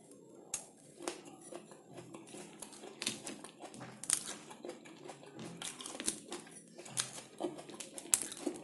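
Eating sounds: a metal fork clicking and scraping on a white ceramic plate of roasted vegetables, with irregular sharp clicks about a second apart and soft crinkly noises between them.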